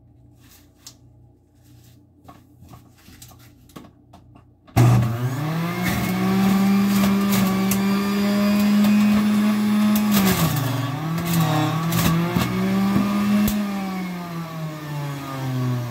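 Electric juicer motor switching on about five seconds in and running with a steady hum, its pitch dipping under load as kale is fed through, briefly about ten seconds in and again near the end. Before it starts, a few faint clicks of handling.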